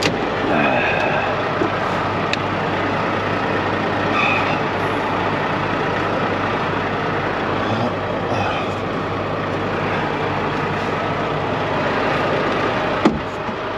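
Semi-truck diesel engine idling steadily, with one sharp knock near the end.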